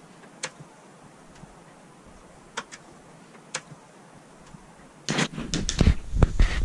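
Plastic retaining clips along the edge of a TV's backlight panel clicking as they are prised free, a few single sharp clicks a second or so apart. About five seconds in, a louder clatter of clicks and low handling rumble as a large white plastic sheet is pulled loose and flexed.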